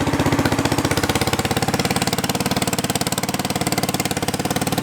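An engine running steadily with a rapid, even firing beat.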